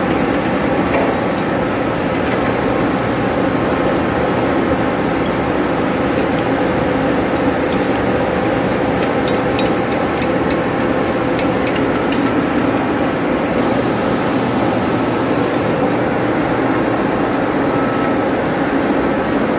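Steady loud hum of running machinery in a pump room, holding several fixed tones. About nine to twelve seconds in there is a run of light metallic taps from a hand hammer and chisel on the pump's pipe flange.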